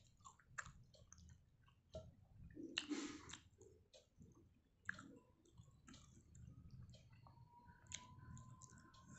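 Faint eating sounds: chewing, and fingers squishing and mixing water-soaked rice on a plate, with scattered soft clicks and one louder wet rustle about three seconds in. A faint steady high tone comes in near the end.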